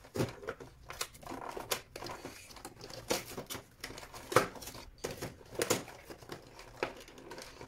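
Cardboard advent calendar box being handled: scattered taps, scrapes and crinkles of cardboard as fingers search for and pry at a door that is firmly glued shut. A few sharper knocks stand out about three, four and a half and nearly six seconds in.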